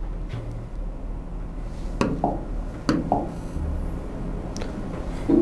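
Steady low room hum with a few sharp clicks about two and three seconds in.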